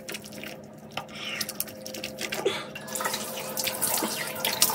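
Bathroom tap running into a sink while water is splashed onto the face and rubbed in with the hands; the splashing grows busier about three seconds in, over a steady low hum.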